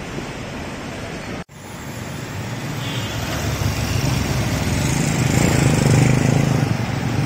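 A small engine running over steady street noise, growing louder over several seconds. The sound drops out for an instant about a second and a half in.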